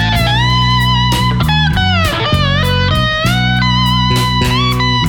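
Electric slide guitar playing a lead solo, its notes gliding between pitches, over a blues-rock band backing with bass.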